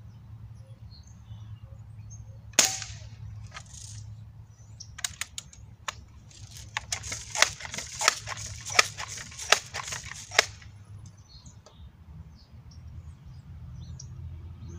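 Crosman M4177 multi-pump air rifle firing one sharp shot about two and a half seconds in. About five seconds in the forend is pumped several times in a row, each stroke a rush of air ending in a click.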